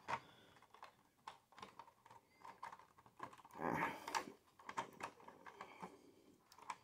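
Hard plastic toy parts clicking, tapping and scraping as an action figure is worked into the cockpit seat of a plastic toy tank: scattered small clicks, with a louder rustle about four seconds in.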